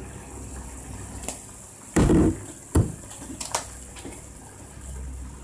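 Pork, bok choy and mushroom broth simmering and bubbling in a frying pan, a steady hiss. A loud short thump comes about two seconds in, with a second, briefer one just after it.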